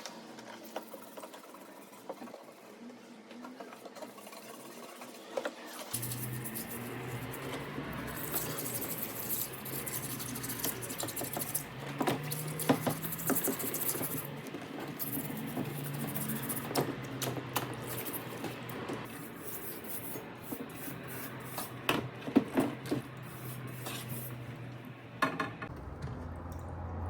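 Rubbing and scraping on metal, with scattered clinks and knocks, as the rusty sword is worked by hand. A low steady hum starts abruptly about six seconds in.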